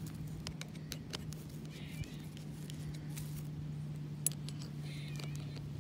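Light metallic clicks and scrapes of a bronze grounding-rod clamp and its steel screws being handled against a copper grounding rod, with one sharper click about four seconds in. A steady low hum runs underneath.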